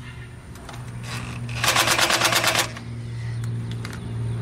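Cordless impact driver running down the rocker-shaft nuts on a VW Type 3 cylinder head: one rapid rattling burst about a second long, starting a little after a second and a half in, with a few light clicks of the socket and tool around it.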